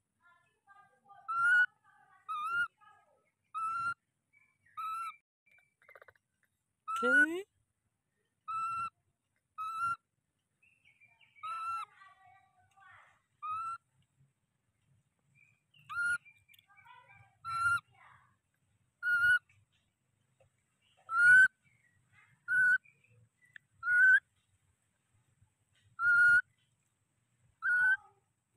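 Baby macaque calling over and over: short, high, whistle-like coos, roughly one a second, with a pause near the middle. About a quarter of the way in, one longer call slides steeply down in pitch.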